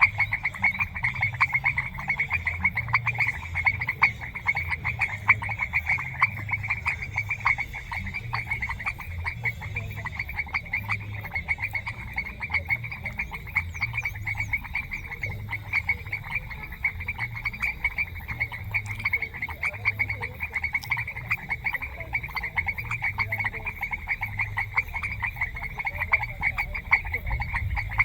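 Chorus of many frogs calling continuously, a dense overlapping mass of fast, pulsing high croaks with no break.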